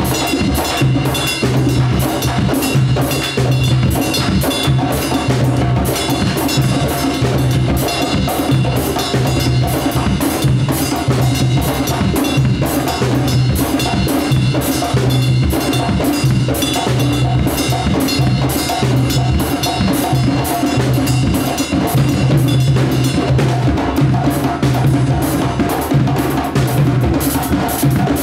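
Candombe drumming: a group of tambores, wooden barrel drums each struck with a bare hand and a stick, playing a dense, driving rhythm together with a drum kit.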